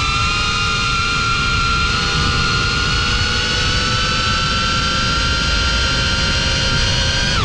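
FPV drone motors and propellers whining at a steady high throttle in flight, several tones creeping slowly up in pitch, then dropping sharply at the very end as the throttle is cut.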